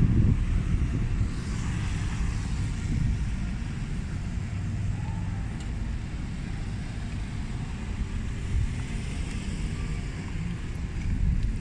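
City street ambience: a steady low rumble of road traffic with a faint hiss above it.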